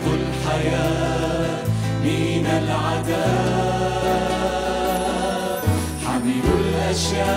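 Arabic Christian hymn sung by a mixed group of male and female voices, backed by guitars and a bass guitar. The bass holds long notes, changing every second or two.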